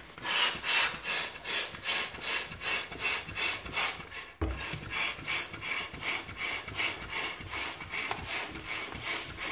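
Hand balloon pump worked in quick, even strokes, about two and a half a second, each stroke a rasping rush of air as it inflates a latex balloon. There is a brief break with a soft bump about halfway through before the pumping carries on.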